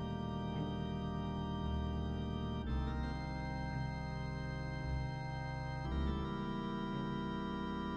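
Slow instrumental music of sustained organ-like keyboard chords, the chord changing about every three seconds over a pulsing low bass.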